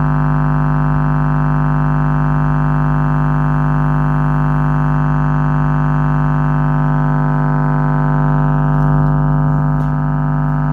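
Small 4-inch subwoofer driver playing a steady low test tone at high excursion, buzzy with a dense stack of overtones, the sound of a driver pushed hard into distortion.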